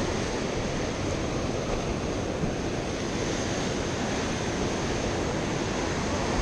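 Ocean surf washing and churning against the foot of a concrete sea ledge, a steady rush of water, with wind blowing over the microphone.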